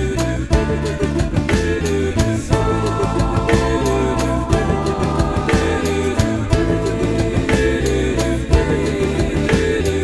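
Instrumental break of a pop-rock song: guitar and drums with sustained chords and a steady beat, no lead vocal.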